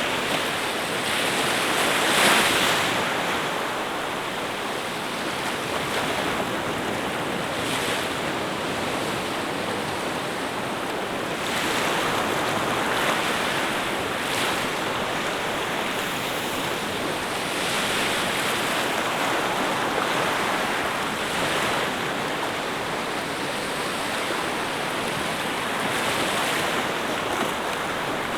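Sea waves breaking and washing ashore: a continuous rush of water that swells every few seconds and eases between.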